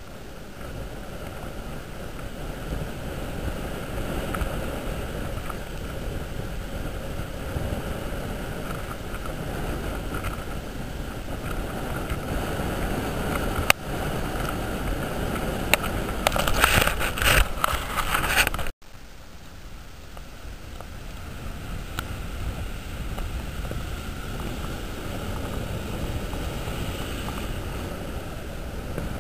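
Strong wind buffeting the microphone over the wash of surf in shallow water. A little past halfway it turns louder and crackly for a couple of seconds, then breaks off abruptly before the wind noise comes back.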